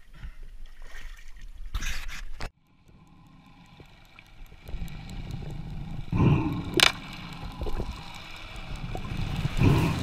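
Water splashing and sloshing at the sea surface, cut off suddenly about two and a half seconds in. Then underwater sound: faint clicks, and low muffled rushing of water with a few thumps.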